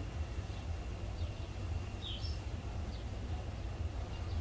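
Steady low rumble of background noise with a few short, high, falling chirps like small-bird calls, two close together about two seconds in and another just before three seconds.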